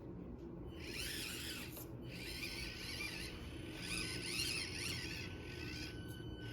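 Axial SCX24 micro RC crawler's small electric motor and gearbox whining in bursts, the pitch rising and falling with the throttle as it crawls.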